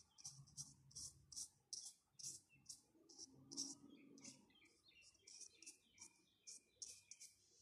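Faint bird chirping: short high chirps repeated about three times a second, with a few lower notes in the second half.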